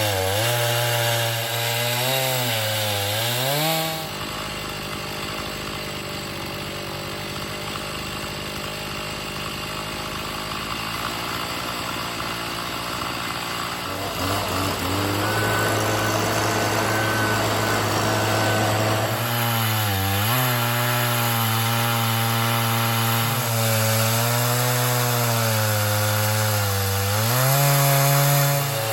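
Two-stroke chainsaw ripping lengthwise through a pine log in an Alaskan chainsaw mill. The engine runs under load, its pitch sagging and recovering as the cut bogs it. For about ten seconds in the middle the engine note drops back to a quieter, rougher sawing sound, then the steady loaded engine returns.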